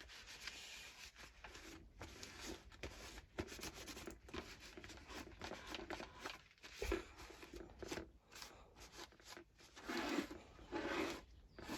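A cloth rag rubbing and wiping over a hedge trimmer's fuel tank: irregular scrubbing strokes, with a few small knocks as the tank is handled.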